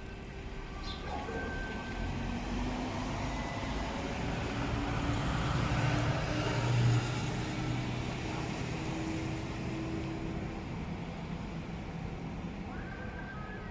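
A motor vehicle passing in the street, its engine and tyre noise building to a peak about halfway through and then fading.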